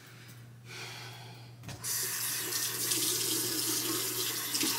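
Bathroom sink faucet turned on about two seconds in, water running steadily into the basin.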